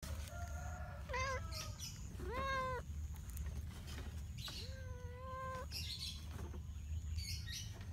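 White-and-ginger cat meowing up at the camera: four meows, the first faint and the last the longest.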